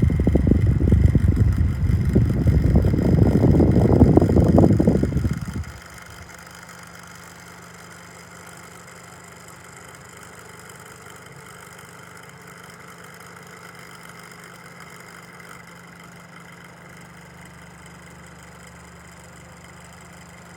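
Electric fan's airflow buffeting the microphone as a loud, rough low rumble for about six seconds, which cuts off abruptly and leaves a steady faint hum.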